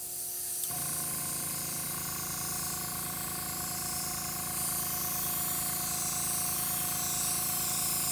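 Airbrush spraying blue paint onto an iced cookie: a steady hiss of air and paint mist. About a second in, a low, evenly pulsing hum joins it, the airbrush's compressor running.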